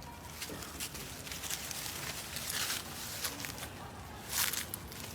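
Rustling and scuffing on the ground, with louder rustles about two and a half and four and a half seconds in.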